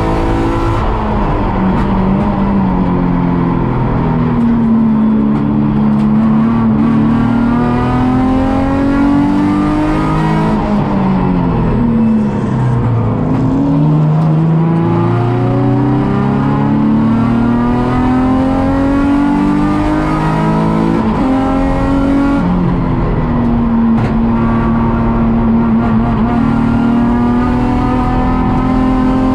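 Nissan 350Z race car's 3.5-litre V6, heard onboard, running hard: the engine note climbs through the revs and drops back at each gear change. About halfway through the pitch falls steeply and then builds again, as the car brakes, downshifts and accelerates out of a corner.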